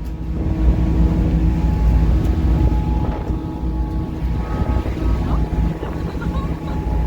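Passenger ferry's engines droning steadily, a low hum with a few constant tones, with wind buffeting the microphone.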